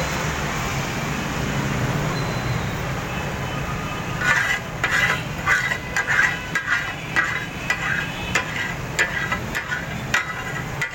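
Metal spatulas striking and chopping on a flat iron griddle in repeated ringing clanks, the rhythmic 'taka tak' of cooking chopped offal, starting about four seconds in over a steady low hum.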